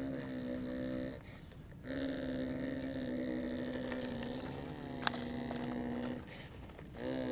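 Electric motor of a radio-controlled construction model running with a steady buzzing hum, cutting out briefly twice and starting up again. A single sharp click comes about five seconds in.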